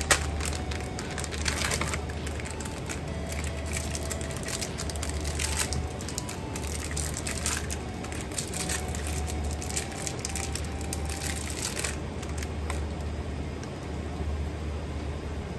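Irregular crunching and crackling from something being handled or broken, which dies away about three quarters of the way through, over quiet background music with a pulsing low bass.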